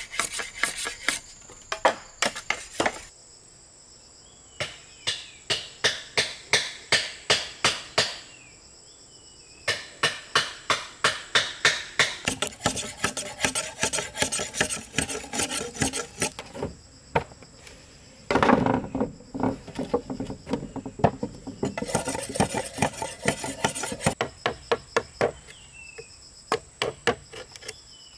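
Runs of rapid, evenly spaced tool strikes on bamboo, about two to three a second, stopping and starting every few seconds, with a louder, longer rasping noise about two-thirds of the way in. A steady high insect drone runs underneath.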